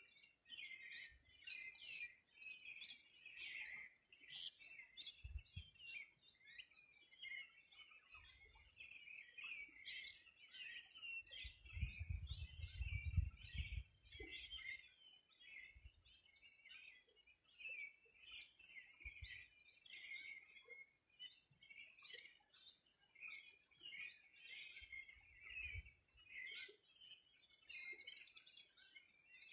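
Riverside dawn chorus: many birds chirping and singing at once, a dense, unbroken tangle of quick high calls. A low rumble swells briefly about midway.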